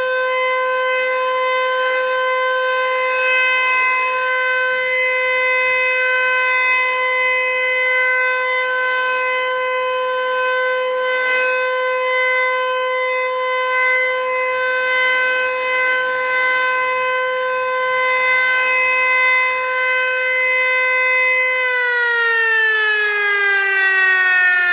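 Outdoor tornado warning siren sounding a steady, single-pitch alert tone. Near the end it starts to wind down, its pitch falling.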